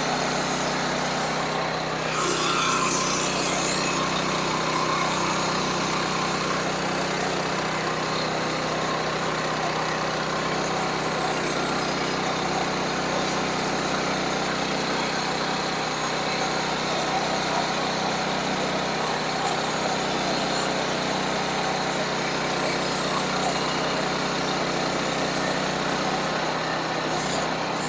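Sawmill's engine running steadily under load while the saw cuts along a log to make a cant, with a brief brighter rasp about two to three seconds in.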